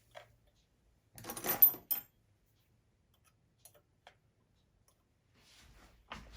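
Small metal exhaust spring being stretched and hooked back onto a nitro RC car's exhaust pipe: a click, then a brief scraping rattle about a second in, a few faint ticks, and a sharper clack near the end.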